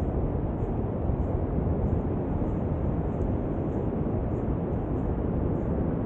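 Wind buffeting the camera's microphone: a steady low rumble.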